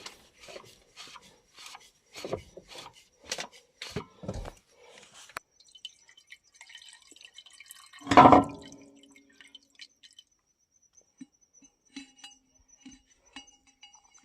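Metal tapping and knocking from work on a bulldozer's transmission filter housing: about a dozen sharp knocks in the first five seconds, then one loud ringing metal clank about eight seconds in, followed by a few light taps.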